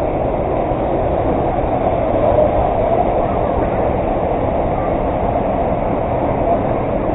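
Waterfall: a steady, loud rush of falling water that keeps an even level throughout.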